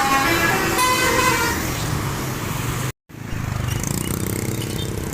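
Telolet bus horn playing a quick melody of several stepping notes, dying away about a second and a half in. After a sudden cut to silence about three seconds in, a bus engine is running.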